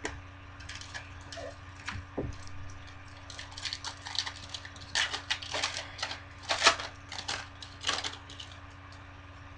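Foil trading-card pack crinkling as it is handled and opened, with light clicks of cards. A scatter of short crackles and clicks, busiest in the middle.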